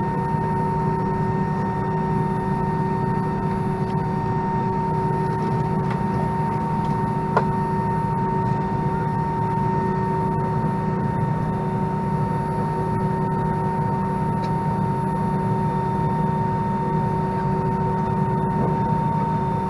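Steady cabin noise inside an Airbus A319 with its engines idling: a constant low hum overlaid with steady whining tones. One sharp click sounds about seven seconds in.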